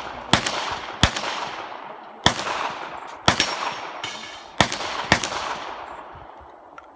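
Six gunshots fired at an uneven pace over about five seconds, each followed by a long echoing decay.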